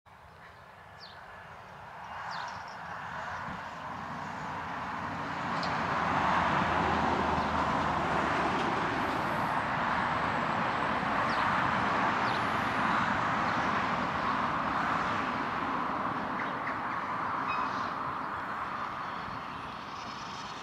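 Steam locomotive working at a distance, heard as a steady rushing of exhaust and steam that swells over the first six seconds and then holds.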